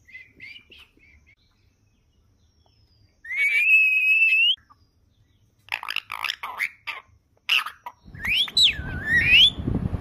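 Rose-ringed (Indian ringneck) parakeet whistling and calling. It gives a few soft chirps, a loud whistle held for about a second and a half, a quick run of short sharp calls, then a whistle that swoops up and back down. A low, noisy rumble comes in near the end.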